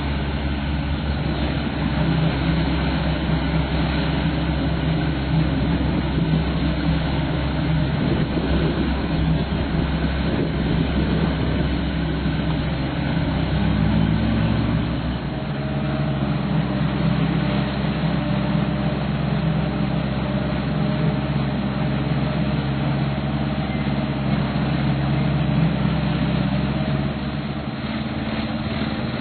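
Aquatic weed harvester's engine running steadily; about halfway through its note rises and then holds at the higher pitch.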